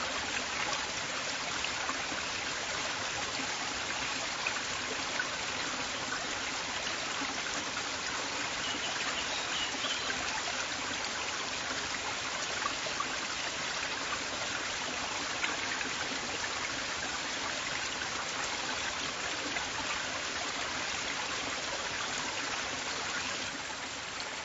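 River water flowing: a steady, even rush of running water with small splashes here and there, dipping slightly in level near the end.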